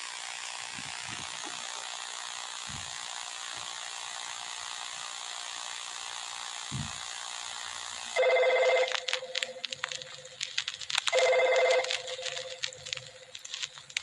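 Steady hiss with a few faint low thumps, then, from about eight seconds in, two telephone rings about a second long and three seconds apart, with sharp clicks around them.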